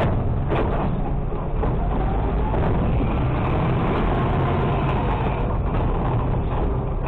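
The diesel engine of a 2019 Mack LR600 refuse truck runs steadily as the truck drives along, with body and hopper rattles and a few brief knocks.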